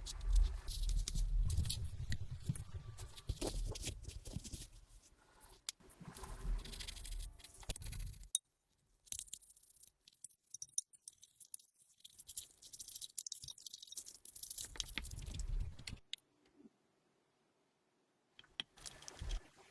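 Small clicks, taps and scraping of tools handling the parts of a vintage mechanical watch, in several short edited stretches with a couple of abrupt silent gaps.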